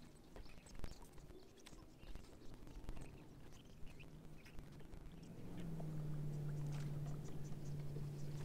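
Bow-mounted electric trolling motor on a bass boat starting up about five seconds in and then running with a steady low hum, under scattered light clicks and taps on the boat.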